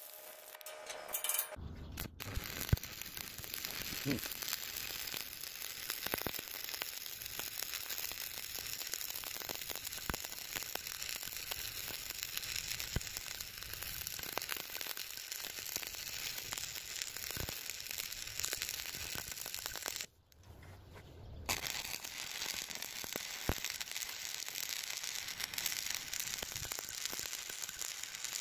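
Stick (shielded metal arc) welding of a root pass on a square steel tube joint: the arc crackles and sizzles steadily. It is struck about a second and a half in, breaks off for about a second and a half some twenty seconds in, then is struck again and runs on.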